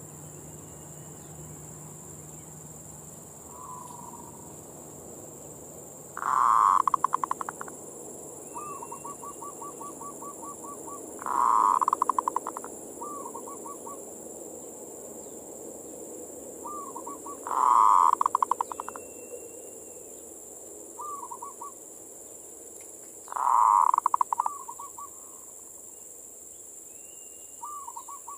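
Zebra dove (perkutut) singing its manggung cooing song: four loud phrases about six seconds apart, each a rapid run of notes trailing into a quick stutter, with softer trilled coos between them. A steady high-pitched hiss runs underneath.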